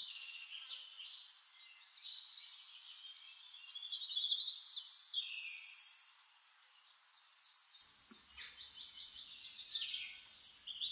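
Songbirds chirping and calling, several high calls overlapping, with quick runs of repeated notes in the middle.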